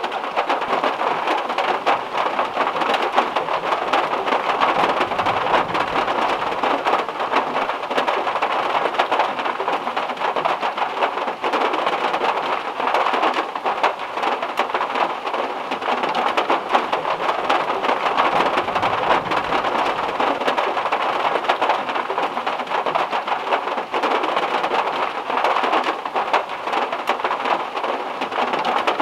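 Heavy rain drumming steadily on the metal roof of a VW Beetle, a dense patter of countless drop impacts.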